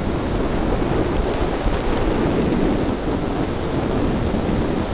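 Wind rushing over the microphone of a motorcycle at road speed, a steady low roar with the bike's running and tyre noise blended in.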